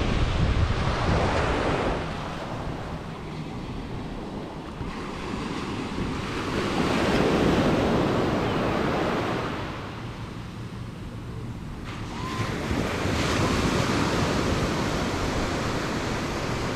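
Small waves breaking and washing up a sandy beach, the surf swelling and fading every five or six seconds, with wind rumbling on the microphone.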